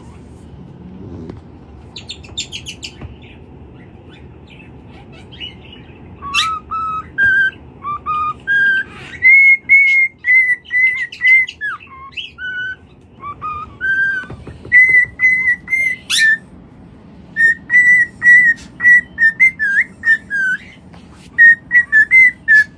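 A parrot whistling a long string of short, clear notes, most at one high pitch with some lower notes and quick slides, starting about six seconds in after a few faint chirps, over a steady low hum.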